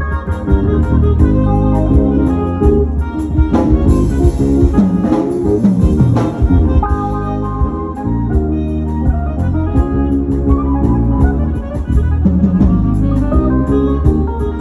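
Live band playing a song, with an organ-toned keyboard over bass and a drum kit keeping a steady beat; a cymbal wash comes in about four seconds in and fades over the next few seconds.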